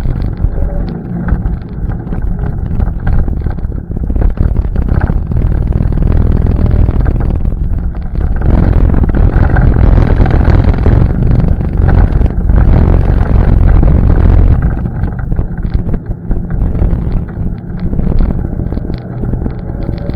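ATV engine running on a trail ride, with wind buffeting the microphone. It grows louder about four seconds in and eases back off about three-quarters of the way through.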